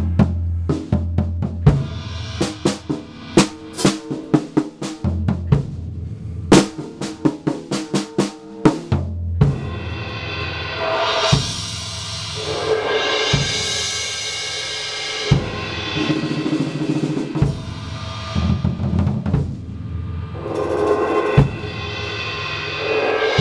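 Drum solo on a Sound Percussion kit fitted with cheap stock drumheads: fast snare and tom strokes over bass drum hits for about the first nine seconds, then a sustained wash of Wuhan crash cymbals with scattered drum hits underneath.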